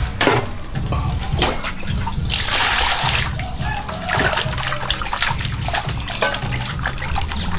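Water splashing and sloshing in a metal basin as raw pork is washed by hand, in short bursts with one longer splash about two and a half seconds in, over background music.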